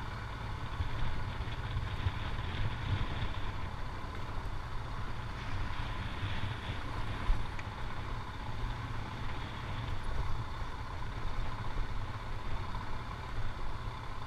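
Motorcycle engine running steadily while riding along a rough, broken road, with wind noise mixed in.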